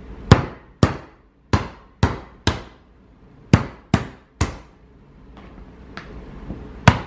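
A hammer cracking the shell of a cooked lobster claw on a wooden cutting board: about nine sharp knocks, coming in quick runs of two or three, with a pause of over two seconds before the last. The first and last knocks are the loudest.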